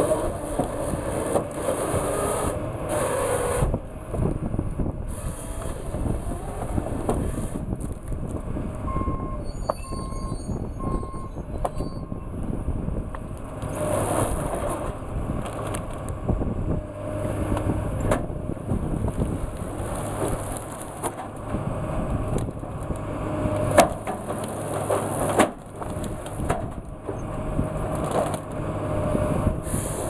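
A tracked John Deere-style forestry harvester's diesel engine and hydraulics running steadily while its processing head grips, feeds and cuts pine stems, with irregular knocks and wood cracking and one sharp crack about three-quarters of the way through. Four short beeps sound around the first third.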